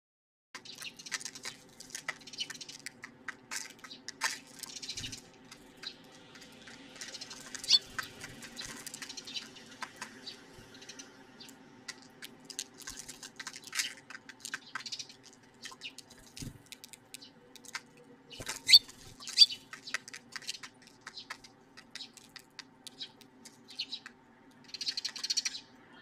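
Eurasian tree sparrows chirping in short, scattered calls, mixed with sharp taps and clicks. The loudest taps come about 8 s and 19 s in, over a steady low hum.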